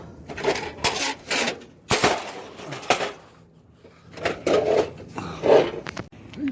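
Rummaging through a dumpster: junk being shifted about, with repeated scraping, rustling and knocking in short bursts and a brief lull about halfway through.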